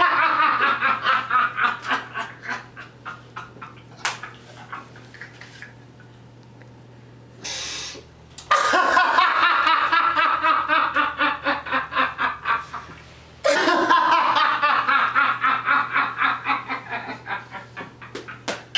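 A man laughing hard in three long fits of rapid, rhythmic 'ha-ha-ha', each falling in pitch and trailing off. Midway there is a quieter lull and a short hiss-like burst.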